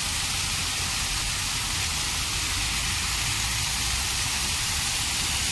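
Ornamental water fountain: many jets splashing and spraying in a steady, even hiss, with a low rumble underneath.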